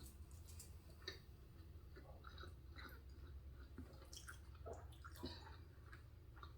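Faint, close chewing of soft mac and cheese, with scattered short wet mouth clicks and smacks at an irregular pace over a faint low hum.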